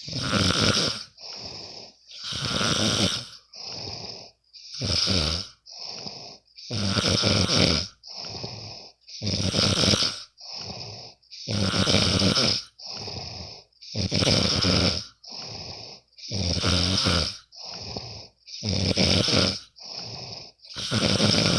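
A sleeping person snoring in a steady rhythm, about one breath every two seconds or so. Each cycle is a louder, longer snore followed by a shorter, quieter one.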